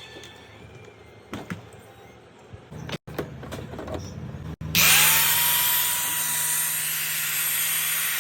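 An angle grinder with a newly replaced armature switches on about halfway through. Its motor spins up in a fraction of a second to a steady high whine over loud rushing air, and keeps running at full speed. Before that there are only a low hum and a few soft knocks.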